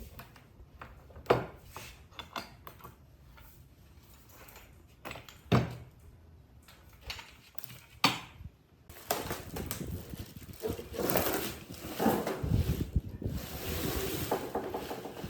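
Three sharp, separate knocks of hard objects, then a busier few seconds of clattering and scraping over the second half.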